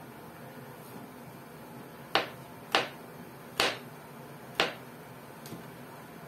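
Four sharp, short clicks or taps, unevenly spaced over about two and a half seconds, against a faint room hush.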